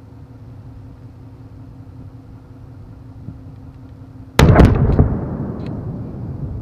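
Controlled demolition blast setting off a block of military flares: one sudden loud boom about four seconds in, with a few sharp cracks right after it and a rumble that dies away.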